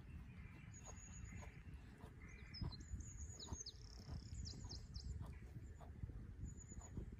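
Small birds chirping: short high notes and quick falling chirps, busiest in the middle, over a low steady rumble with a few soft knocks.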